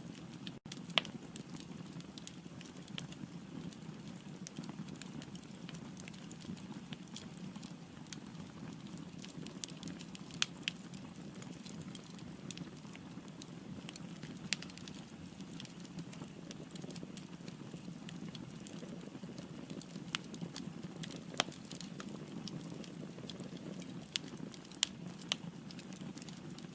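Firewood burning in a fireplace: a steady low rushing of the flames under irregular sharp crackles and pops, a handful of them louder than the rest.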